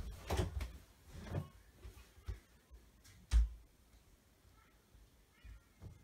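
A few faint footsteps walking away, then one louder dull thump about three and a half seconds in, with a couple of faint knocks near the end.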